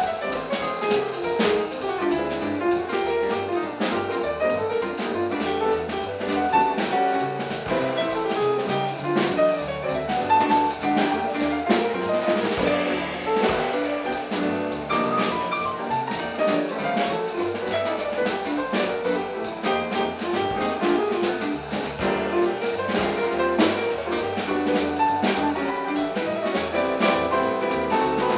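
Small jazz band playing an instrumental chorus without singing: a melodic solo over piano, walking double bass and drum kit with cymbals.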